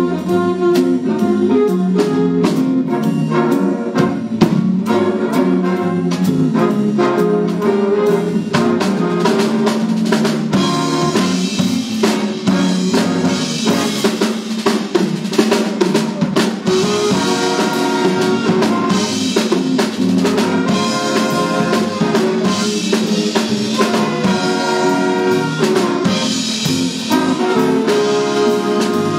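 Jazz big band playing a swing number live: the drum kit keeps time under the horn section, and the trumpets and trombones grow louder and fuller from about ten seconds in.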